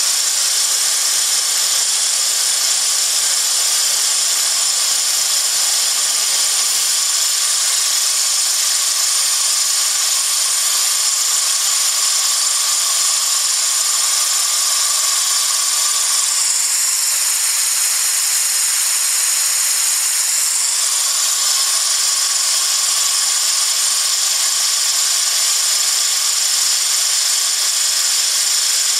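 Compressed air hissing from a nozzle through a venturi onto a small fan blade, spinning a small DC motor that whirs steadily. The sound changes briefly between about 17 and 21 seconds in.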